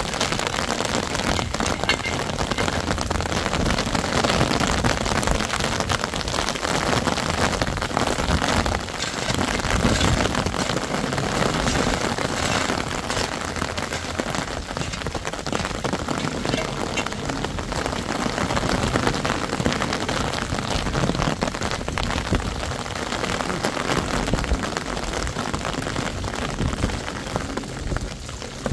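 Steady rain falling on wet ground, an even hiss of drops.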